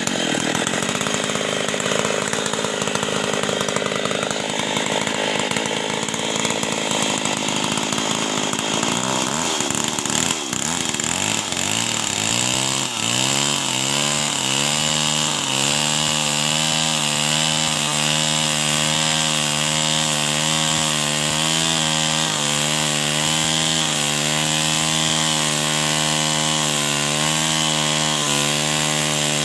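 Two-stroke chainsaw cutting through wood under load, then revving up after the cut and running steadily at high speed with a slight regular waver in pitch.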